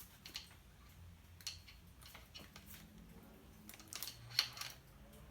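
Scattered light clicks and taps of hand tools and metal clamp parts being handled, over a faint low hum.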